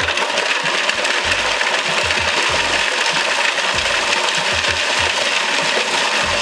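Cuisinart food processor running steadily, its blade smashing chunks of hard Parmesan into crumbs, the pieces rattling against the plastic bowl.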